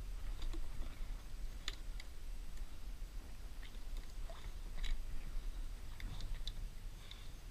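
Small water lapping and clicking against a plastic kayak hull and mangrove roots: scattered soft ticks and wet clicks, irregular, over a steady low rumble.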